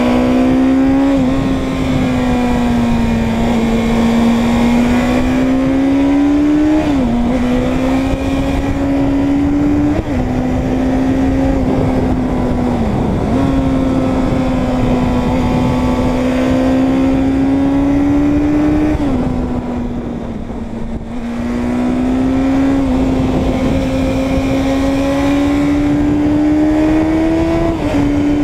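Suzuki Bandit 600 N's inline-four engine pulling along at road speed, heard from the rider's seat with wind rush over it. Its note climbs steadily and drops abruptly several times, the pattern of upshifts, and eases off briefly about twenty seconds in.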